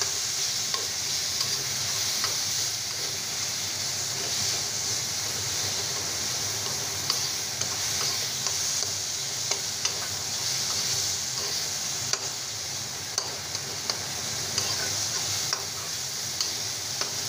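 Onion-tomato masala with spice powders frying in oil in a black kadai, sizzling steadily, while a steel spatula stirs and scrapes it, with scattered sharp clicks of the spatula against the pan.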